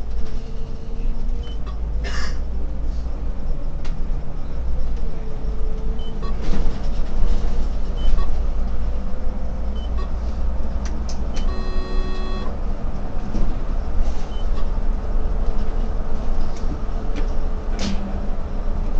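Solaris Urbino 18 IV articulated city bus under way, heard from the driver's cab: a steady deep engine and road rumble with a slowly wavering engine note and a few short rattles and clicks. About twelve seconds in, a single electronic beep lasts about a second.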